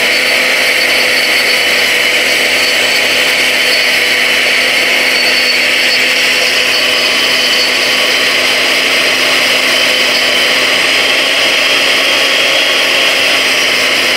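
Stainless-steel high-speed powder grinder running flat out as it pulverises a load of dry spice. It makes a steady, loud high-pitched whine over a rushing noise that doesn't change.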